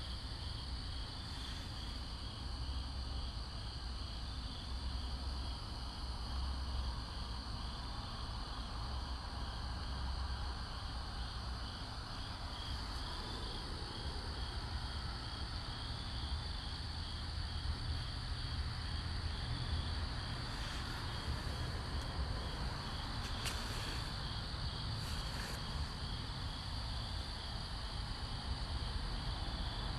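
Crickets chirping steadily in a high, even pulsing trill, over a constant low rumble.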